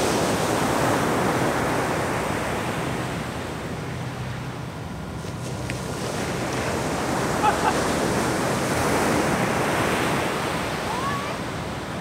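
Ocean surf breaking and washing up a sandy beach, a steady rush that swells louder, eases off, then swells again as the waves come in.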